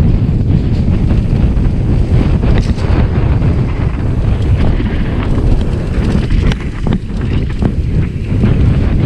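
Loud wind buffeting the microphone, a rough rumble with a few brief knocks.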